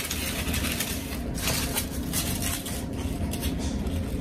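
Artificial fall leaf stems rustling and crinkling in irregular short bursts as they are handled and pushed into a floral arrangement, over a steady low rumble.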